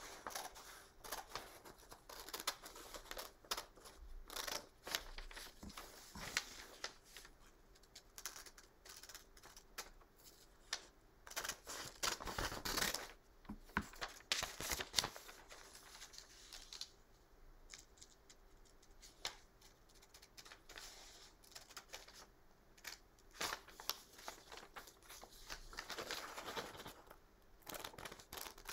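Scissors cutting through a sheet of paper: a run of faint, short, irregular snips.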